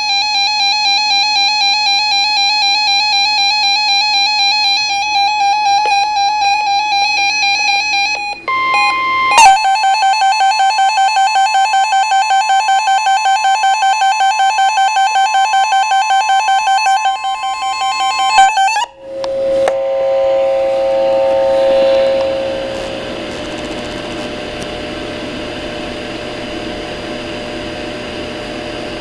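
Electronic alarm tones: a rapidly pulsing, buzzy tone for about eight seconds, a short higher beep, then a second pulsing tone that stops abruptly. It gives way to a ringing tone that fades over a few seconds, leaving a steady hiss.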